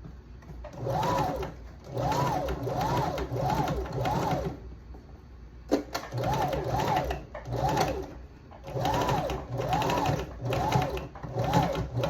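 Janome sewing machine zigzag-stitching a hair weft onto a wig cap, run in about ten short bursts, each speeding up and slowing down again, with brief pauses between them. A single sharp click about halfway through.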